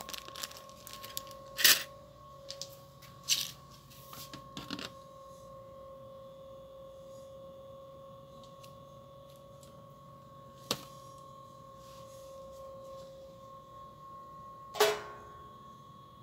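Steady humming shop background with a few sharp clacks and light rustling, like goods and plastic packaging being handled. The loudest clack comes near the end and rings briefly.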